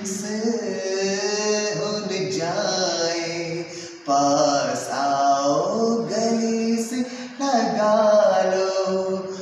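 A man singing a Hindi film song in three held phrases, breaking briefly about four and seven and a half seconds in.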